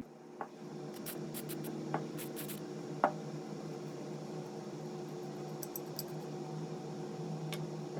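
Light clicks and small knocks of hand plane parts being handled, the loudest about three seconds in, over a steady low hum.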